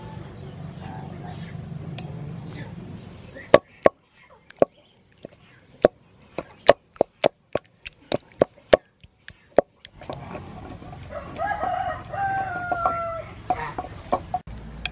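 Wooden pestle pounding cooked tomato in a wooden mortar: a run of about fifteen sharp knocks in the middle, coming faster, up to about three a second. Afterwards a rooster crows once, a held call that falls in pitch.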